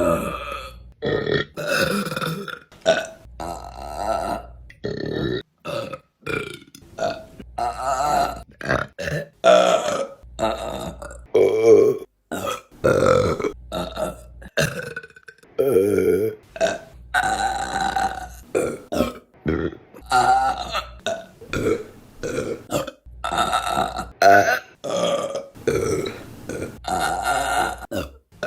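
Women's burps, one after another in quick succession: many separate belches, some short and some drawn out over a second, each at a different pitch, with abrupt cuts from one to the next.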